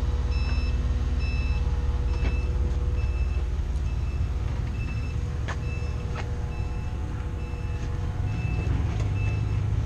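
Forklift reversing alarm beeping steadily, a little more than once a second, over the forklift's running engine as it backs up with a camper on its forks. A couple of sharp clicks come about halfway through.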